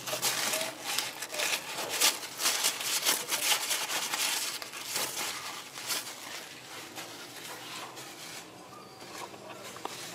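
A rag rustling and rubbing as it wipes the engine's cylinder head, with busy crackling for the first six seconds or so, then quieter.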